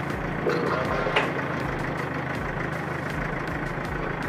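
Mobile crane's engine running steadily as its boom lifts a worker up to the steel frame, with a brief click about a second in.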